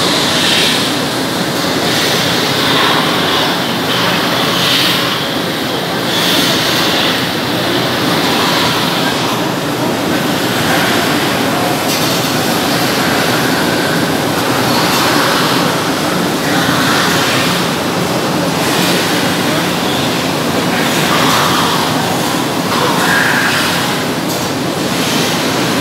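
Machinery of a poultry processing line and its overhead shackle conveyor running, a steady loud din, with indistinct voices under it.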